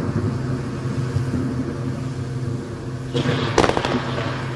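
Fireworks display: a quick cluster of sharp crackling pops about three seconds in, over a steady low rumble.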